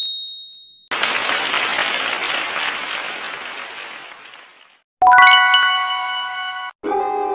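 Quiz-game sound effects for a correct answer: a single bright ding, then a recorded burst of applause that fades away over about four seconds. About five seconds in comes a bright chime with several ringing tones, and near the end another musical sting begins.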